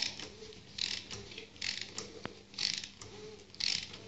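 Ratchet wrench clicking in short bursts, about one a second, five times, on its return strokes while tightening the oil filter housing cap of a Peugeot 206 HDi.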